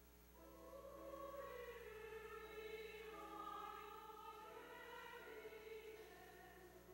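Mixed church choir singing a Korean hymn in unison harmony over soft held accompaniment notes. The voices swell in about half a second in and fade toward the end.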